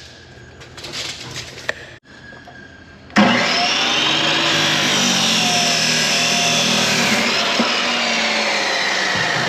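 A hydraulic hose cut-off saw's motor starts suddenly about three seconds in and runs loud and steady, its pitch drifting slightly as the wheel cuts through hydraulic hose. Before it there are only faint handling noises.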